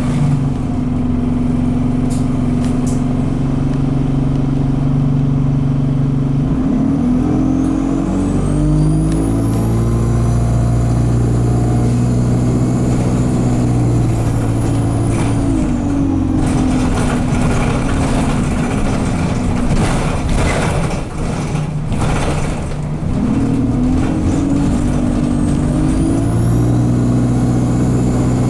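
Alexander Dennis Enviro200 bus engine pulling away twice, its pitch climbing, holding high, then dropping, with a high turbo whistle rising and falling alongside it; the gearbox is stuck in 2nd/3rd, so the engine is held at high revs. Short bursts of hiss come between the two pulls.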